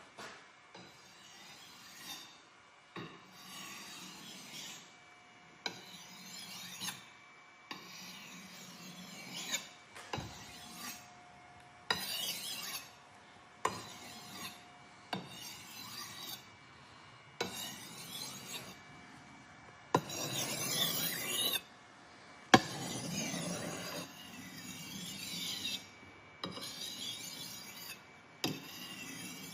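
Hand abrasive finishing strokes, rasping and rubbing back and forth, with occasional clicks. The sound comes in short clips joined by abrupt cuts.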